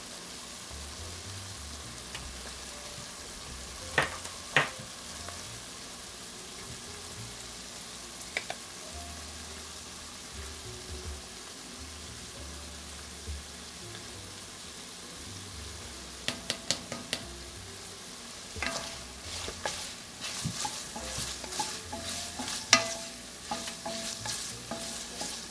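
Chopped onion and celery sizzling gently in melted butter in an enamelled Dutch oven, with two sharp knocks about four seconds in. From about two-thirds of the way through, a wooden spatula stirs the vegetables, clicking and knocking against the pot.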